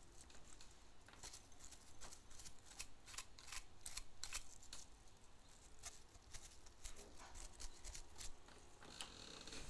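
A small lint brush scrubbing dust out of the hook race of a Necchi BU Mira sewing machine: faint, short brushing strokes, roughly two a second and irregular.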